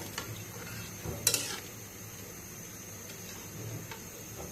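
A cooking utensil stirring and scraping in a pot of fish curry, with a light sizzle under it and a sharp metal clink about a second in.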